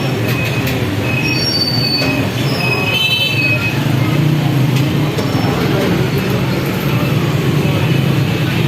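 Steady low engine-like hum of vehicle noise, with several short high-pitched squeals in the first few seconds.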